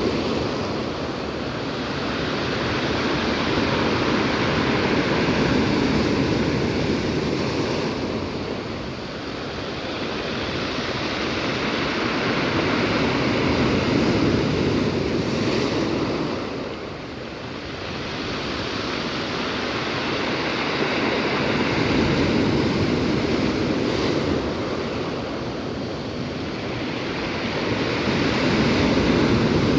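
Storm surf on the Black Sea: waves breaking and washing ashore in slow swells that rise and fall every several seconds, with some wind on the microphone.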